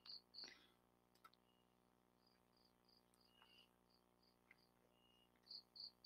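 Near silence: room tone, with faint high-pitched chirps repeating in runs at about three or four a second.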